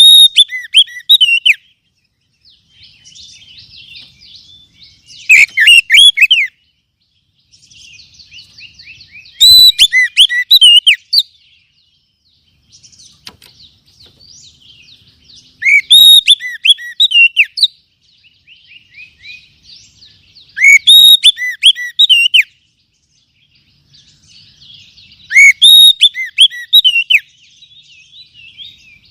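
Oriental magpie-robin (kacer) song: loud phrases of sweeping whistled notes about every five seconds, each a second or two long, with soft rapid twittering between them.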